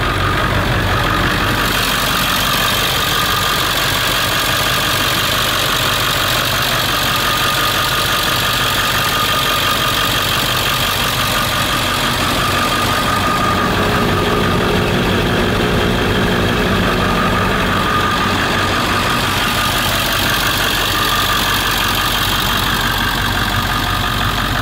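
Ford 7.3 Powerstroke turbodiesel V8 idling steadily.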